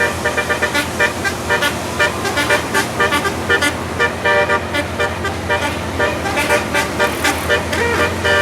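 Telolet basuri musical air horn playing a quick melody of short notes, several a second, over a steady low hum.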